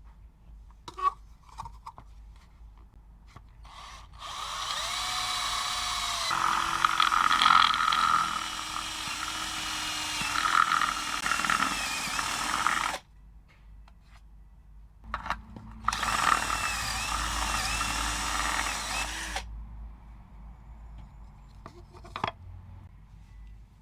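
Homemade PVC-pipe saw driven by a 775 DC motor runs in two bursts, about nine seconds and then about three and a half. Its whine dips in pitch and recovers as the blade is loaded, typical of cutting. A few small clicks come before and after the runs.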